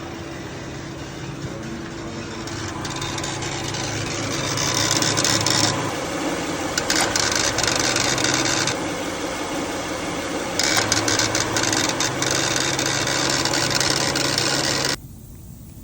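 Unidentified mechanical whirring and rattling from a car with the air conditioning switched on, over a steady low hum. The rattling noise swells in stretches of a few seconds and cuts off suddenly near the end.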